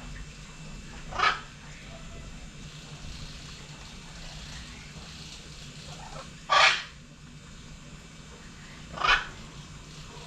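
Three short, loud animal calls, the middle one the loudest, over a steady low hum.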